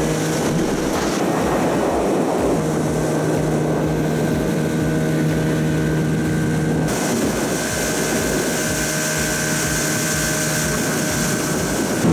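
Outboard motor on a small aluminium Vilbot 46 motorboat, running at a steady cruising speed under way, its engine note holding even throughout.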